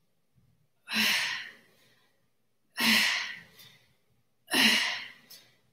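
A woman breathing out hard three times, a puff about every two seconds. These are the effortful exhalations of push-ups done rep after rep.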